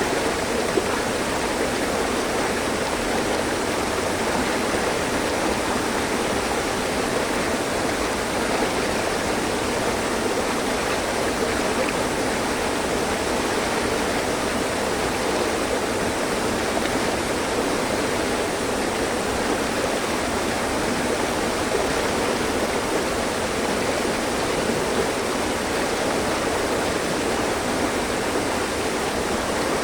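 Mountain stream running over rocks: a steady, unbroken rush of flowing water.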